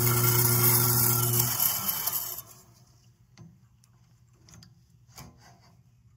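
Bandsaw blade cutting through a cast-iron manifold with a steady motor hum. The motor cuts out about a second and a half in and the noise dies away over the next second as the blade coasts down. A few light clicks and knocks follow.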